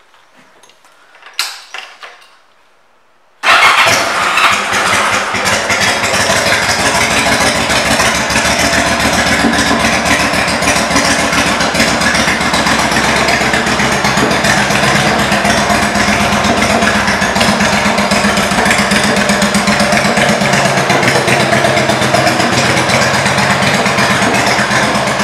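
Yamaha V Star 1100 Classic's air-cooled V-twin, fitted with Cobra aftermarket exhaust pipes, comes on abruptly about three seconds in after a few faint knocks. It then idles steadily with an even, rapid pulsing.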